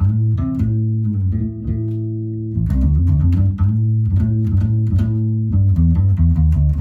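Fender electric bass with flatwound strings, played through an amp: a line of plucked low notes, easing to a held note for about a second and a half before the riff resumes. The tone is warm.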